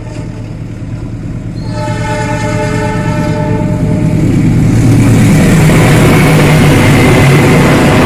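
Train horn sounding: one blast ends just after the start, and a second runs from about two seconds in for under two seconds. Then the rumble of the passing train grows loud as the locomotive and its passenger coaches run through the station at speed.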